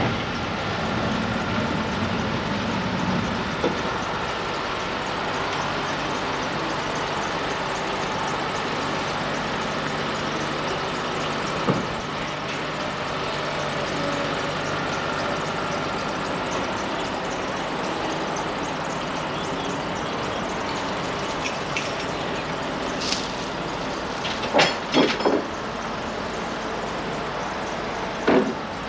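Diesel engines of a tracked excavator and a low-loader lorry running steadily, with a few sharp knocks in the last few seconds.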